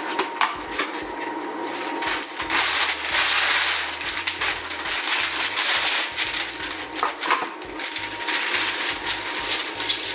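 Parchment paper being pulled off its roll and handled, a papery rustling and crinkling with many small crackles, loudest in a long rustle about two and a half seconds in.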